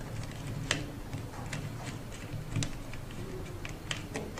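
Light, irregular clicks and rustling from hands handling and tucking servo wires and their plastic connectors into a robot's metal chassis.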